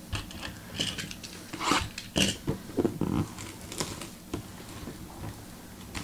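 Plastic shrink-wrap being torn and crumpled off a cardboard box: irregular crinkling and crackling, loudest about two seconds in.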